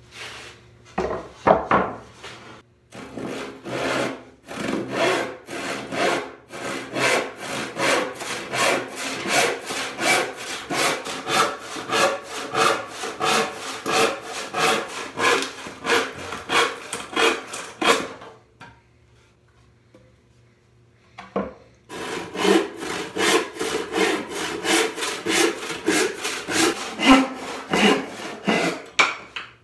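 Hand saw crosscutting a walnut board in steady back-and-forth strokes, about two a second. The sawing stops for a few seconds past the middle, there is a single knock, and then the sawing starts again.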